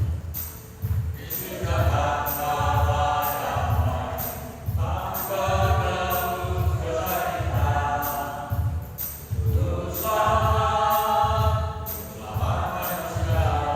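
A church choir of older singers singing phrases in harmony over an accompaniment with a steady low beat, about two a second, and high rhythmic ticks.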